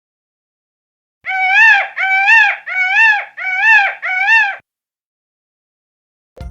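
Peacock calling five times in quick, even succession, each call a loud pitched note that rises then falls.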